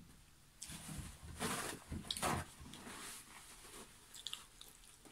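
Close-up mouth sounds of someone chewing a cheese-sauce-soaked burger: wet chewing and smacking. Louder spells come around one and a half and two seconds in, and small wet clicks follow near the end.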